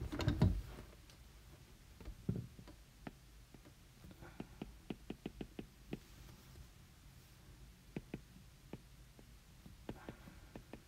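Stylus tip tapping and clicking on a tablet's glass screen during handwriting: light clicks come in a quick run of about a dozen around the middle, then a few scattered ones near the end.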